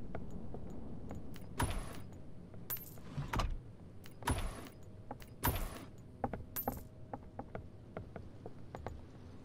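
Irregular sharp clicks and clattering knocks, about six louder ones in the first seven seconds and many faint ticks after, over a low rumble that fades away.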